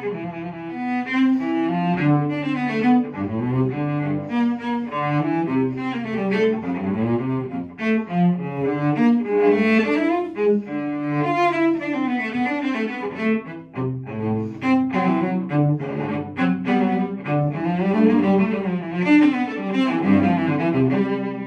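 Solo cello played with the bow: a continuous passage of quick notes rising and falling in pitch, with a brief softer moment about two-thirds of the way through.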